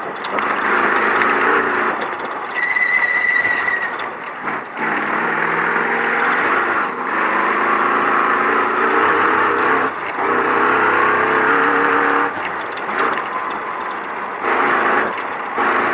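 Ford Ranger prerunner race truck's engine heard from inside the cab at race speed over dirt, revving up and dropping off several times as the throttle is lifted and reapplied, over a steady din of tyres and rattles. A short high tone sounds about three seconds in.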